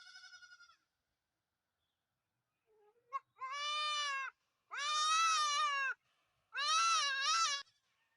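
A goat bleating: a short faint call, then three loud, long bleats with a wavering pitch.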